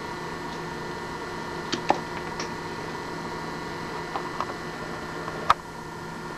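Surface noise of a spinning 33⅓ rpm vinyl record with the stylus in the silent grooves near the label: a steady hiss and hum with scattered soft clicks and one sharp pop about five and a half seconds in.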